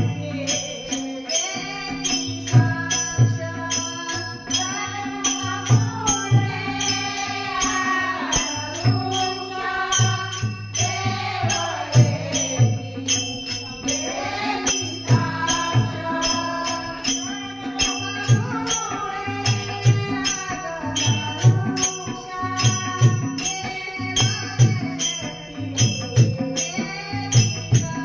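A woman singing a Marathi devotional abhang, the melody gliding and ornamented, over a steady held drone. A regular drum beat and jingling metallic percussion keep time.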